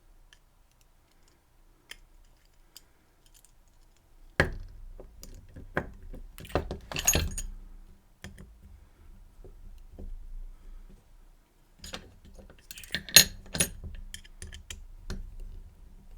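Small metal tools and lock cylinder parts clinking and rattling as a dimple lock cylinder is handled and taken apart. Faint clicks at first, then a sharp knock about four seconds in, followed by bursts of metallic clinks and rattles, the loudest near the middle and again near the end.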